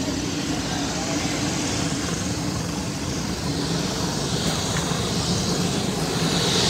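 Eurocopter EC135 helicopter's twin turbine engines and rotor running on the ground: a steady drone with a whine. It grows louder near the end as it winds up for departure.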